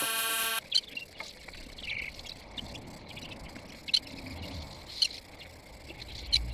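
Background music cuts off about half a second in. After that come a few sharp, separate taps or knocks a second or more apart over a faint outdoor background with birds chirping.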